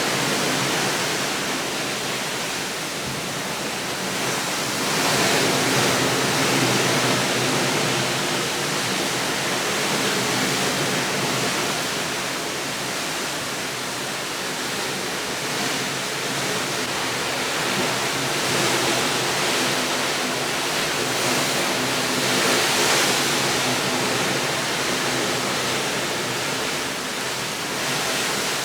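Steady rushing noise, like a waterfall or surf, that swells and eases slowly every several seconds.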